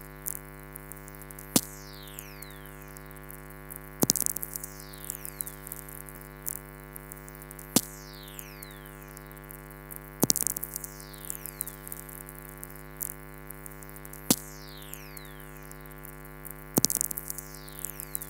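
Lightning whistlers picked up by a very-low-frequency radio receiver and played as sound. There are sharp crackling clicks from lightning strokes, about six in all. Each is followed by whistling tones that fall steadily in pitch over about a second, over a steady hum.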